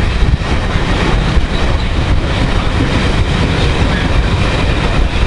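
Loud, steady running noise of a passenger train at speed, heard from a carriage window, with rumble and rushing air.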